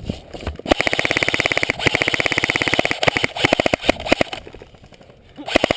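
Airsoft rifle firing on full auto: rapid, evenly spaced shots in three long bursts with brief breaks, a pause, then a short burst near the end. The firing empties the magazine.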